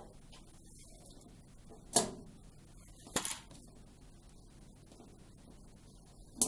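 Three sharp clicks and knocks as the heater wiring and its plastic cable grip are worked by hand through the grommet hole in a tumble dryer's metal back panel. The loudest comes about two seconds in, a smaller one a second later, and another near the end.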